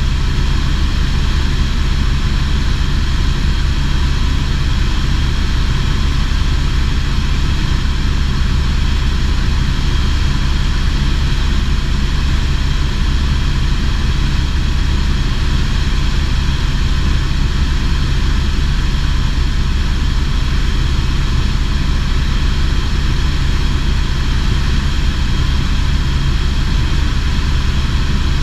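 Helicopter rotor and turbine engine running steadily in flight, heard from on board: a loud, constant drone with a strong low hum.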